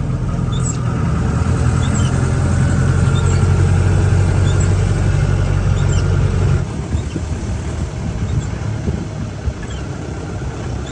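Jeep engine and road noise heard from on board while driving, a steady low hum that drops off sharply about two-thirds of the way through as the engine eases off, leaving a lower, uneven rumble with scattered light ticks.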